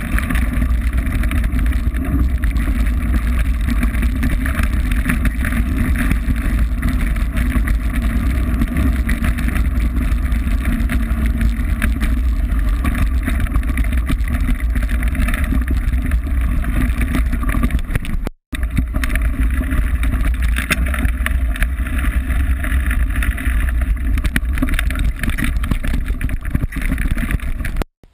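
Steady loud rumble of wind buffeting the microphone of a camera on a mountain bike descending a loose gravel track, mixed with tyre and frame noise. It breaks off for an instant about two-thirds of the way through and cuts off suddenly near the end.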